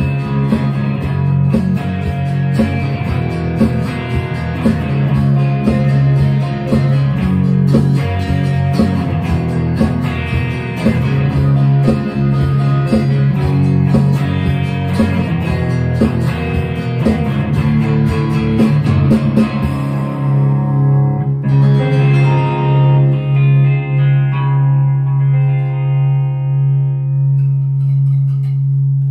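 Electric and acoustic guitars playing together, an instrumental passage without singing. About twenty seconds in the strumming stops and the last chord rings on, its upper notes dying away over a held low tone, the loudness wavering.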